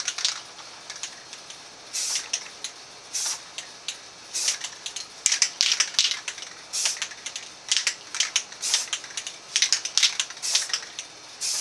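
Rust-Oleum rattle-can spray paint hissing in about a dozen short bursts, one every second or so, some in quick clusters, as stripes are sprayed on in quick passes.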